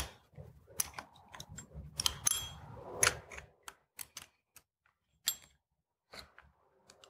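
Small steel wrenches clicking and clinking against nuts and change gears as M6 jam nuts are run down onto the gear studs and locked with two wrenches: a run of irregular light metal clicks that thins out after about five seconds.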